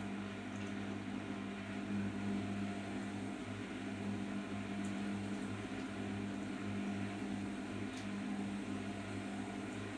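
Arçelik 5083 washing machine running during its final rinse stage: a steady low hum with an even hiss over it and no change in pace.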